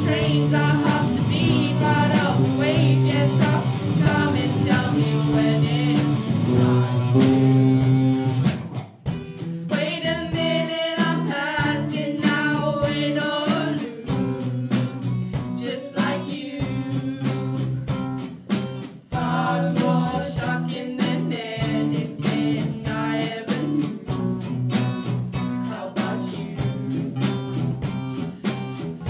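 A student rock band playing live: electric guitar and bass guitar with several young voices singing over a steady beat. The music drops out briefly twice, about nine and nineteen seconds in.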